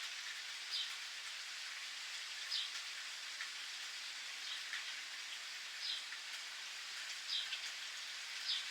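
Steady rain pattering, with a bird giving short high chirps, each one slipping slightly down, every second or two.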